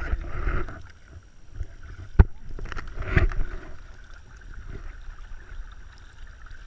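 Splashing and handling noises from a small boat on the water, with a sharp knock about two seconds in.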